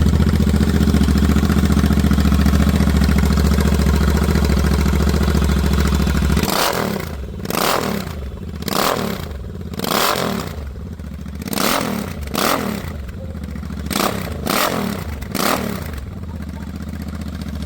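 Royal Enfield Interceptor 650's parallel-twin engine running on open headers with the silencers removed: a steady loud idle, then, about six seconds in, a series of about eight quick throttle blips, each rising and falling in pitch, before it settles back to idle near the end.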